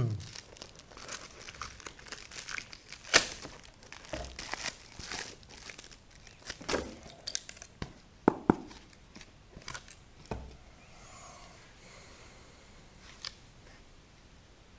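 Clear plastic release film crinkling and tearing as it is peeled off a foam mold and away from a freshly cured fiberglass sump shell, with a few sharp cracks as the layup parts from the mold. The crackling dies down near the end.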